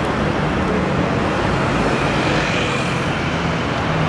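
Singer DLS Porsche 911's air-cooled flat-six idling steadily at the kerb, with city traffic passing.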